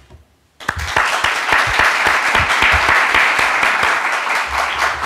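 A small audience applauding: many hands clapping, starting abruptly about half a second in, then steady.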